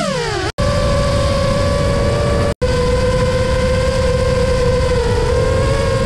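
FPV quadcopter's electric motors and propellers whining at a nearly steady pitch over a rush of prop wash and wind, the pitch dropping sharply at the start as the throttle is eased off. The sound cuts out for an instant twice.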